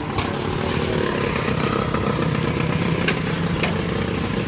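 TVS Super XL moped engine running, its exhaust loud and raspy through a cracked silencer.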